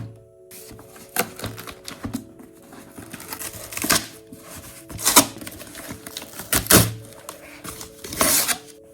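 Hands unboxing a book parcel: a string of crisp taps, knocks and crinkles of packaging, roughly one every second or so, some with a dull thud. Soft background music with held notes runs underneath.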